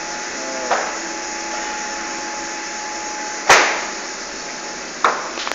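Olive mill machinery running with a steady hum, broken by one loud knock about three and a half seconds in and smaller knocks near the start and the end.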